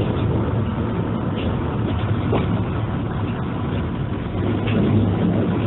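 Metre-gauge diesel railcar heard from on board while running along the line: a steady engine drone with the rumble of wheels on the rails.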